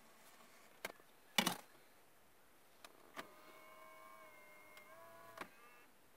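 Motorized front panel and mechanism of a Toyota TNS DVD navigation head unit. A loud clunk comes about a second and a half in, then a small electric motor whines steadily for about two seconds and stops with a click.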